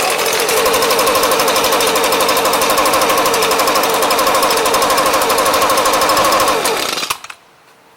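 Echo ES250 shredder vac's two-stroke engine running steadily for about seven seconds, then cutting off suddenly. The run points to a bad switch as the cause of its no-spark, no-start fault.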